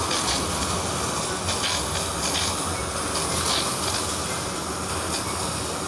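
Two Boring Company Not-A-Flamethrower propane torches firing together, with a steady, unbroken rushing hiss of burning propane.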